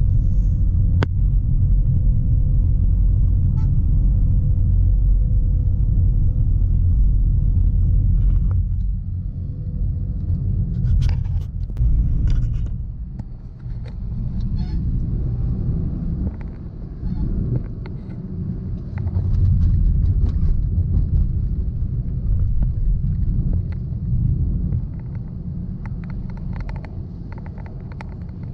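Steady low rumble of a vehicle on the move, road and wind noise, with a few scattered clicks and knocks.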